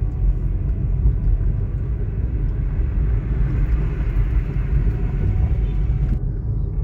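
Steady low road-and-wind rumble of a vehicle travelling along a road; the higher hiss drops away suddenly near the end.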